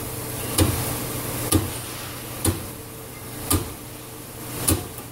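Dunham No. 1 diaphragm steam trap on test, draining condensate with a steady hiss over a low hum. Sharp knocks come about once a second, spacing out slightly toward the end.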